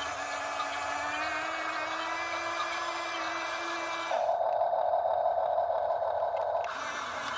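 Huina 1/14 scale RC excavator's electric motors whining as it works, the pitch creeping up slightly. About four seconds in a louder, duller buzz takes over for a couple of seconds, then the first whine returns.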